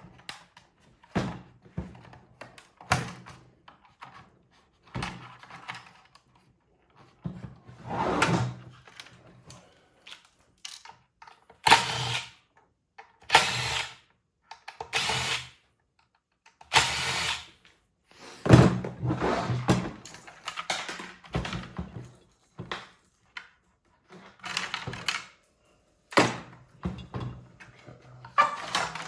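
Bench teardown of an electric-car onboard charger: hand tools and metal housing parts knocking, clunking and scraping as it is taken apart, in an irregular run of knocks with a few longer scraping bursts.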